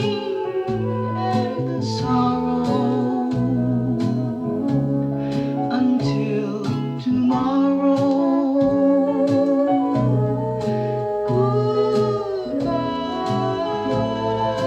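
Instrumental passage of a slow, old-style orchestral song played back over hi-fi loudspeakers: held, wavering melody notes over a regular beat.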